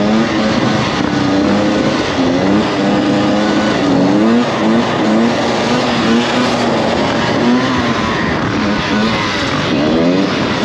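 Two-stroke dirt bike engine revving hard, its pitch climbing and dropping back over and over as the throttle is worked and the gears change.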